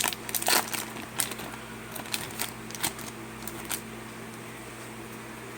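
Pokémon trading cards flipped and slid against one another by hand: a run of light clicks and snaps over the first four seconds, over a steady low hum.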